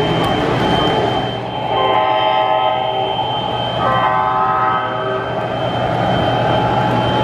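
O-scale model diesel locomotive's onboard sound system blowing its horn twice, each blast about a second long, the first just under two seconds in and the second about four seconds in, over the steady rumble of the model train running on three-rail track.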